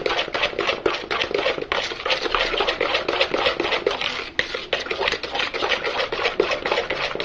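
Cake batter of eggs, sugar and margarine being beaten by hand in a bowl. The utensil scrapes and clicks against the bowl in quick, even strokes, about five a second.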